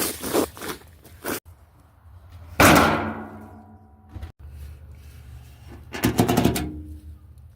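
Metal being struck in separate takes: a few quick knocks, then one loud clang about two and a half seconds in that rings down in several tones, and a quick cluster of metallic hits near the end with a short ring.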